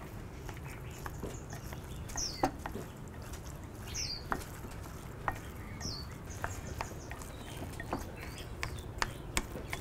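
Chopsticks mashing tofu in a glass bowl: irregular light clicks and taps as the chopsticks strike the glass and crush the tofu. A bird gives a few short, high chirps in the background.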